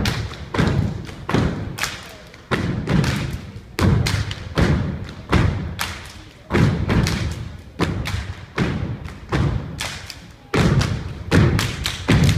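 Feet stomping on a floor in a rhythmic performance routine: heavy thuds about two a second in an uneven, syncopated pattern, each ringing on briefly in a large echoing hall.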